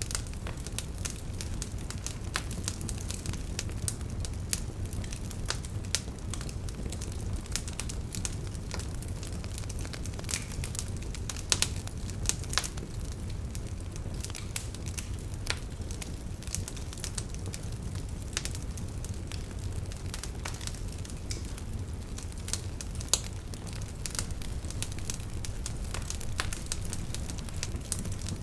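Fire crackling: scattered, irregular pops and snaps over a steady low rumble.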